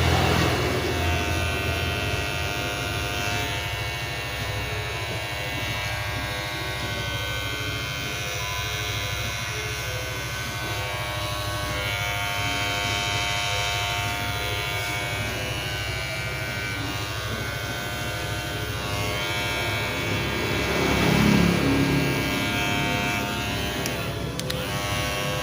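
Magic Clip electric hair clipper running with a steady buzz made up of many tones, swelling louder briefly near the end.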